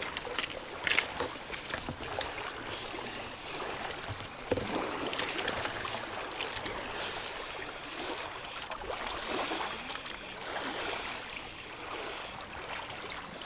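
Water splashing and lapping, with a few sharp clicks in the first couple of seconds.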